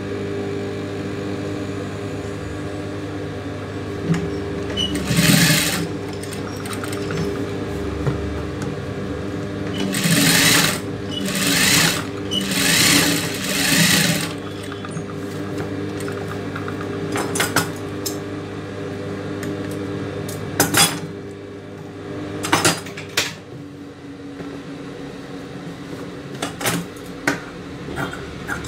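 Industrial sewing machine stitching a seam in several short runs of a second or two, over a steady hum. A few sharp clicks near the end.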